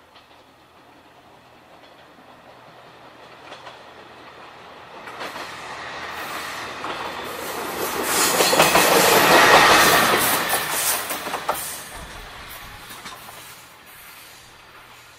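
Diesel railcar approaching and passing close by, its wheels clacking over the rail joints. It grows louder to a peak about nine to ten seconds in, then fades as it moves away.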